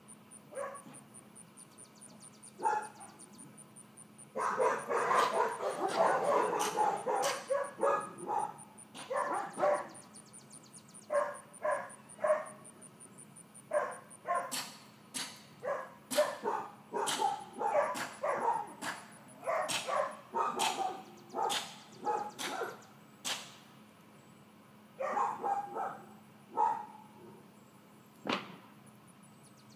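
Miniature dachshund puppy barking and yipping in short, sharp barks: a dense run about five seconds in, then single barks about once a second through most of the rest.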